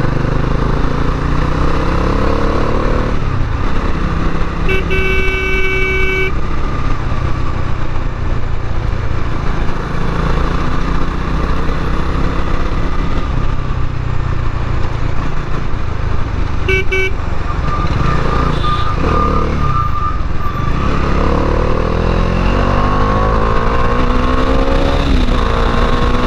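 Bajaj Dominar 400's single-cylinder engine under way, revving up with rising pitch as it pulls off near the start and again through the last few seconds. A vehicle horn sounds for about a second and a half some five seconds in, and gives a short toot about seventeen seconds in.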